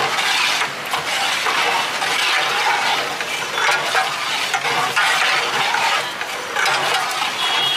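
Long metal ladle stirring daal and rice in a large metal cooking pot, scraping and clinking against the pot's sides in repeated strokes.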